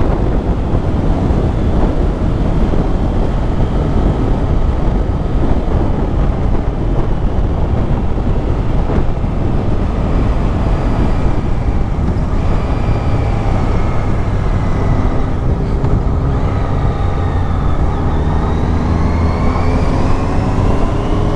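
Riding on a motorcycle: heavy wind rush on the microphone over the engine, whose note climbs steadily in pitch over the last few seconds as the bike accelerates.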